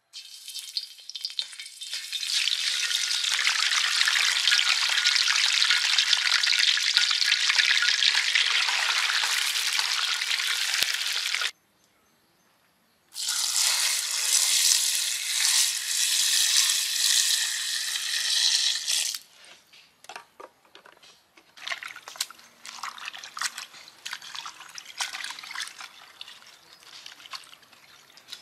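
A whole fish is laid into hot oil in a metal wok and sizzles steadily for about ten seconds. After a short silence, a stream of water is poured onto vegetables in a bowl for about six seconds, then quieter splashing and rustling as hands wash the vegetables in the water.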